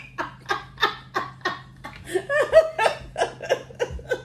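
A man and a woman laughing hard together, in a quick, rhythmic run of short bursts, about three or four a second.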